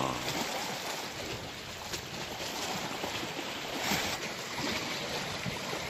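Sea water washing against a rocky shore, with wind noise on the microphone; a brief louder rush of noise about four seconds in.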